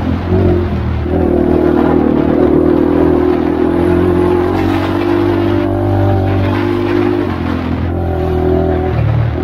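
Honda 400EX ATV's single-cylinder four-stroke engine running steadily under way on a dirt trail. Its note lifts slightly about a second in and drops a little about seven seconds in, as the throttle eases.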